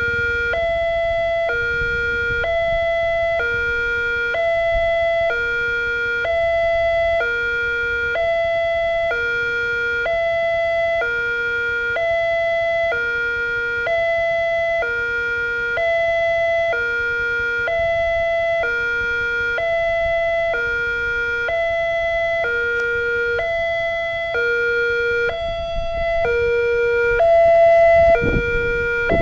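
Railway level-crossing warning signal from the crossing's loudspeaker horn: an electronic two-tone alarm alternating high and low about once a second, steady and loud, warning that a train is approaching. A low rumble comes in near the end.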